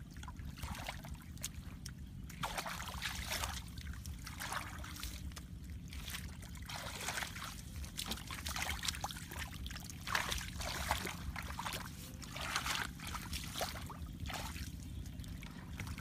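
Water splashing and sloshing in a shallow muddy puddle as hands grope through it, in irregular splashes every second or two over a steady low rumble.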